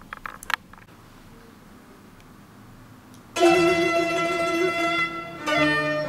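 A few faint clicks, then about three and a half seconds in, background music of string instruments starts suddenly, with sustained notes.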